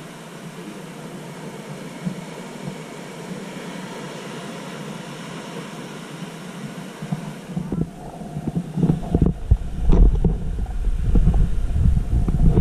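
Steady hiss of ocean surf and wind. About seven seconds in, wind starts buffeting the microphone with a louder, uneven low rumble that comes in gusts.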